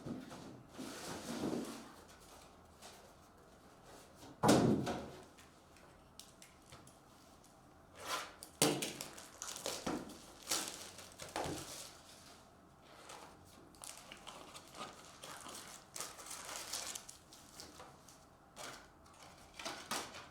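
Hands opening a sealed box of trading cards: scattered scraping and rustling of cardboard and wrapper, with a dull thump about four and a half seconds in.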